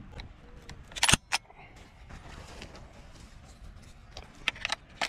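Metal clicks and clacks of a semi-automatic shotgun being handled and its action worked by hand: a sharp clack about a second in followed quickly by a lighter click, then a quick run of smaller clicks near the end.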